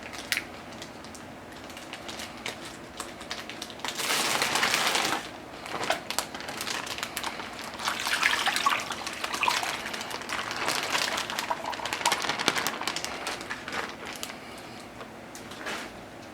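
Liquid marinade being poured over raw baby back ribs: a loud splashing gush about four seconds in, then a longer uneven pour with small crackles and clicks, and a brief splash near the end.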